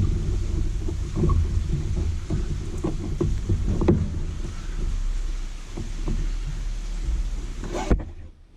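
Low rumbling with irregular rustling, scraping and light knocks from hands working a clutch cable through a motorcycle's frame; the sound cuts off abruptly near the end.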